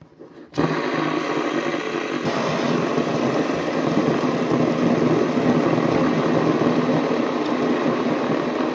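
Fidget spinners whirring on their ball bearings. A steady, engine-like hum starts suddenly about half a second in.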